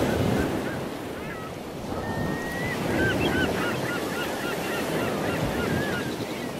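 Ocean surf washing steadily, with birds giving many short, quick chirping calls over it from about a second in, including one longer whistled note.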